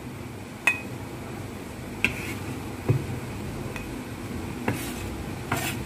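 Chopped chicken and vegetable filling scraped off a wooden cutting board into a glass bowl: about six light, scattered clicks and clinks of the utensil against board and glass, a few with a brief ring.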